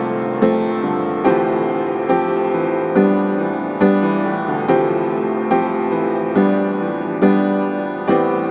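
Background keyboard music, a chord struck roughly every second and left to fade.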